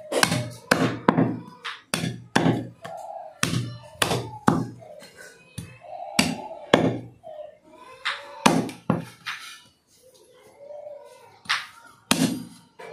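Goat meat being chopped with a blade: a run of sharp chops, irregular at about two a second, with a short lull about ten seconds in.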